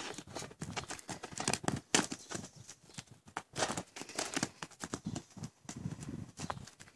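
Donkey foal's hooves stepping and scuffing on gravelly dirt in irregular knocks and scrapes as it pushes a ball along the ground with its nose and legs.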